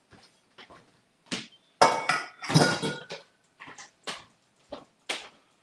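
Kitchenware clattering: a string of sharp knocks and clinks, with a louder clatter and a short metallic ring about two seconds in.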